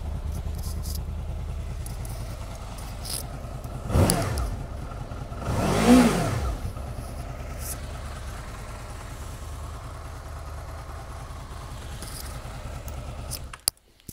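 2005 Honda VFR800 VTEC's V4 engine idling warm at a settled idle speed, blipped twice with the throttle partway through, the revs rising and falling each time. The engine then cuts off near the end.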